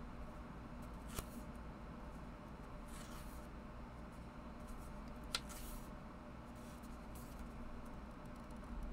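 Pages of a small paper guidebook turned by hand: soft paper rustles and slides, with two brief sharp clicks, about a second in and about five seconds in, over a faint steady low hum.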